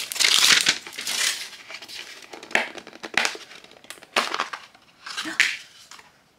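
A seal being peeled off a small hard plastic blind-box case with a scratchy rip over the first second, then the case creaking and snapping in several separate scrapes as its halves are pried apart.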